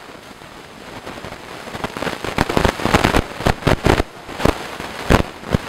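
Plastic bag crinkling and crackling in irregular sharp crackles as crushed strawberries and cherries are squeezed out of it into a pot. The crackling is sparse at first and gets thicker and louder from about two seconds in.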